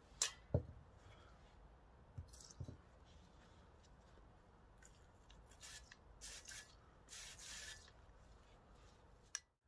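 An aerosol spray can hissing in three short bursts into a stripped-down motorcycle starter motor, the last burst the longest, at about half a second. A few faint knocks come before them.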